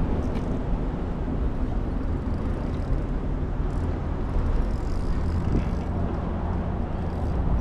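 Steady low rumble of road traffic crossing the bridge overhead, with a low hum running under it.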